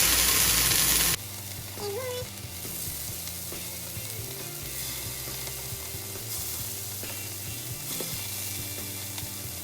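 Cheese frying on a hot skillet greased with cooking spray, a steady sizzle. A louder hiss for about the first second drops off suddenly to a quieter sizzle.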